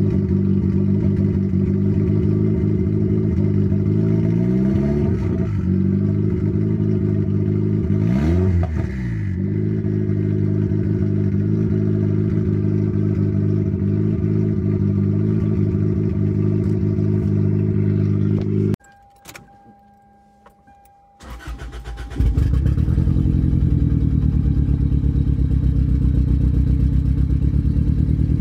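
Turbocharged Toyota Celica's boosted 1ZZ four-cylinder engine idling steadily, with two short blips of the throttle, the pitch rising and falling about five and eight seconds in. The engine sound drops away for about three seconds, then the idle returns.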